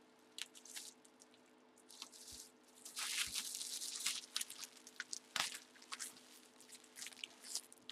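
Clear plastic wrapping crinkling and rustling as it is handled, in scattered crackles with a denser stretch in the middle, over a faint steady hum.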